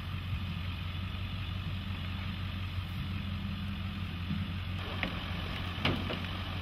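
Pickup truck engine idling steadily, a low even hum, with a few short knocks near the end.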